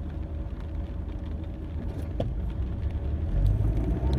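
Low engine and cabin rumble of a car waiting at a light, growing louder about three seconds in as the car pulls away.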